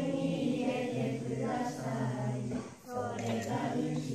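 Children singing a nasheed without instruments, in held, sung phrases with a brief breath about three-quarters of the way through.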